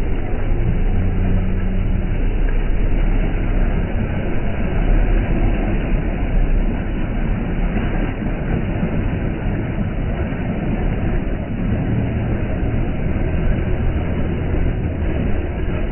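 Steady, loud rumbling noise of a moving vehicle, with a deep low hum running under it.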